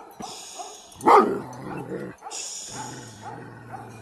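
A goat-guarding dog barking at a stranger, with one loud bark about a second in and quieter short calls around it.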